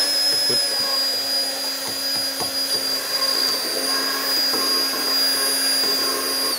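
Immersion blender motor running with a steady high-pitched whine as it purées onions, garlic and tomatoes in a stockpot, spinning down at the very end.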